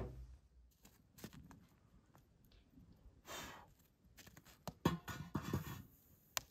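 A cauldron being handled and set down on a small outdoor wood stove: faint scattered clinks and knocks, the sharpest about five seconds in, with a short hiss about three seconds in.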